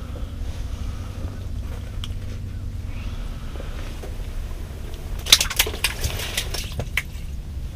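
A steady low rumble, with a cluster of sharp clicks and rustles from handling, clothing and gear, about five to seven seconds in as the angler reaches out with his arm.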